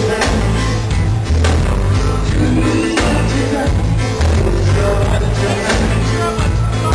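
Live reggae band playing loud, with a deep, prominent bass guitar line and steady drum hits, heard from within the audience.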